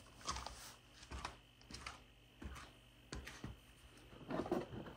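Light rustles and clicks come in short irregular bursts about every half second, and the loudest cluster about four seconds in is a hand standing a small paper box upright on the floor.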